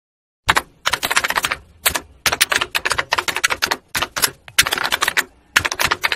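Rapid clatter of typewriter keys, starting about half a second in and going in quick runs of strokes broken by short pauses.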